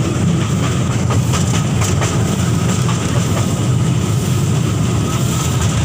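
Small passenger toy train running along its track, heard from aboard: a steady low rumble with scattered light clicks from the wheels.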